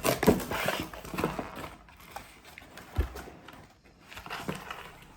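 Toy packaging being handled and opened: crackling and rustling with sharp clicks for the first second or so, then scattered knocks of plastic toy pieces, including one dull thump about three seconds in.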